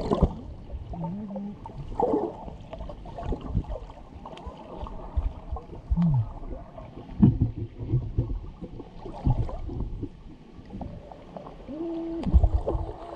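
Water and bubbles heard underwater: muffled knocks and gurgles, with short tones that arch up and down in pitch, most clearly about halfway through and near the end.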